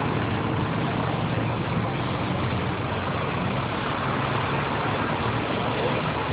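Steady city traffic noise at a busy intersection: car engines running and passing, with a low engine hum under an even wash of street noise.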